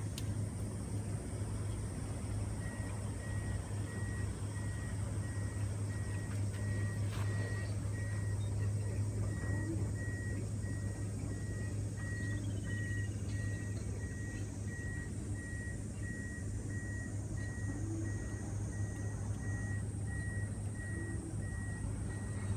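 Vehicle reversing beeper sounding a steady run of short beeps, about two a second, over a low steady rumble.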